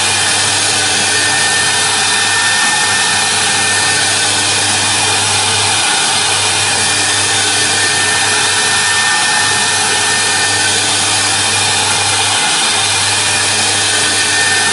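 Omni CNC router spindle running steadily while its engraving bit cuts a white cylinder turned on the rotary axis: a steady high whine over a continuous hiss.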